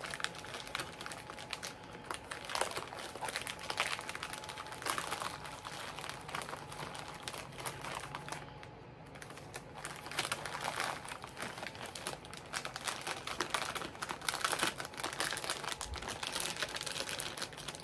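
Plastic packaging crinkling and rustling as it is handled, in a dense run of small crackles, easing off briefly about eight seconds in.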